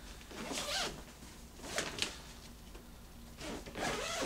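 A zipper being pulled open in three short pulls, about a second apart.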